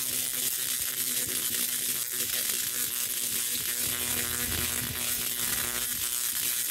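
Tesla coil firing, its sparks arcing off the toroidal top load with a steady electric buzzing crackle.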